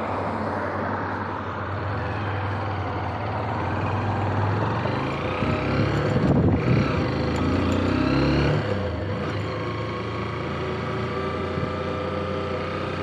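Motorcycle engine running at low revs, then pulling away about four seconds in with its pitch rising, loudest for a few seconds, before settling to a steady cruise.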